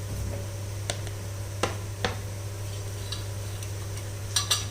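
Light clicks and taps of a spoon against a bowl or glass while spice powder is measured in, a few single ticks and then a quick run of taps near the end, over a steady low hum.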